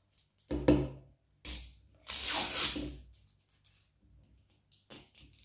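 Plastic wrapping being peeled and torn off an L.O.L. Surprise toy ball: two short crinkling tears, then a longer tearing rasp about two seconds in lasting around a second, and a few faint crinkles near the end.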